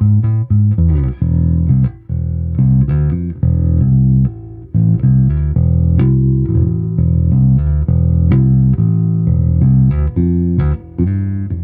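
Golden electric bass guitar being played for a sound test: a continuous line of plucked notes with a few brief pauses between phrases.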